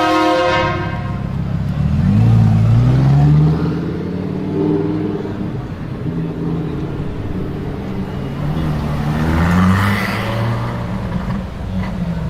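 A brief horn toot at the very start, then a recorded car engine revving up and down several times, played as an electronic sound effect.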